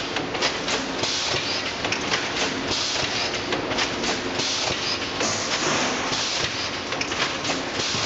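Ideal GA 400 1600 automatic cable tray welding line running: a dense, continuous mechanical clatter of many quick clicks and clacks, broken every second or so by short bursts of hiss.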